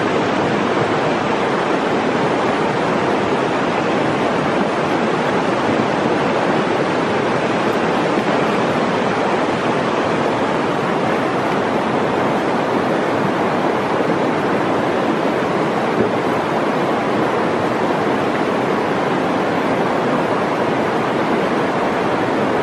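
Steady rushing of a shallow, rocky river's flowing water, an even noise with no pauses.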